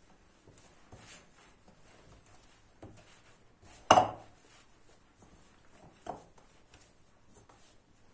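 Hands mixing and kneading dough in a glass bowl: quiet soft handling, with one loud knock against the bowl about four seconds in and a fainter one about two seconds later.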